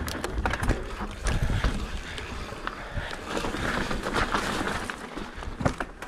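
Mountain bike riding fast down a dirt singletrack: tyres rolling and crunching over the dirt, with irregular sharp knocks and rattles from the bike over a low rumble, and a louder hiss a little past the middle.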